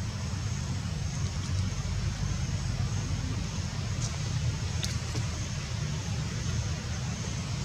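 Steady outdoor background noise: a low rumble under a steady high hiss, with a couple of faint ticks about four and five seconds in.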